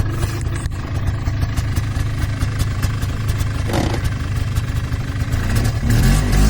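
An engine running steadily, with a rattling clatter over it; it gets louder about six seconds in.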